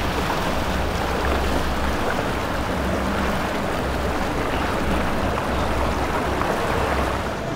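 Steady rushing noise of wind and water with a low rumble of boat engines underneath.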